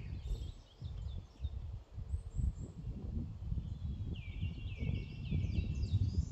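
Eurasian skylark singing in rapid, chattering runs of high notes. There are short snatches near the start, and a dense burst begins about four seconds in. Under the song is a low, uneven rumble.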